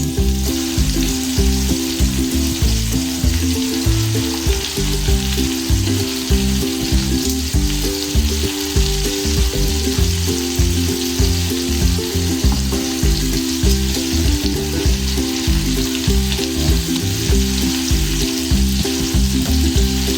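Ribeye steak sizzling in butter in a frying pan, under background music with a steady bass line.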